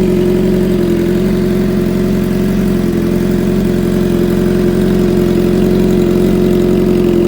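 Suzuki GSX-R750 inline-four engine idling steadily through an aftermarket AR exhaust on a titanium slip-on link pipe, at an even, unchanging idle.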